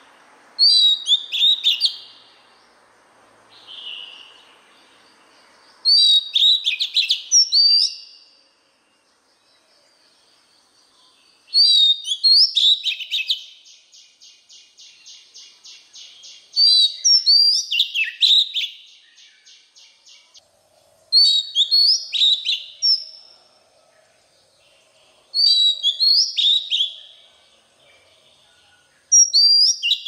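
Oriental magpie-robin singing: short, loud phrases of clear sweeping whistles and quick chattering notes, repeated about every four to five seconds. A fast buzzy rattle runs underneath through the middle stretch.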